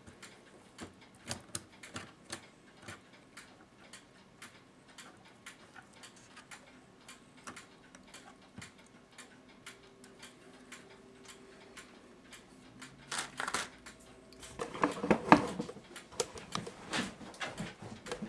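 Light metallic clicks and taps of brass clock-movement parts being handled as the movement's front plate is lifted off and set aside, with a louder clatter toward the end.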